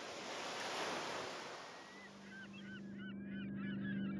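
Soft wash of waves that fades out about three seconds in, while a flock of birds starts calling in many short chirping glides over a low steady hum.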